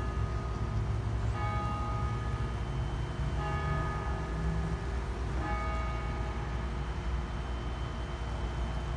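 A bell tolling slowly, one stroke about every two seconds, each ring fading out before the next, over a low steady rumble.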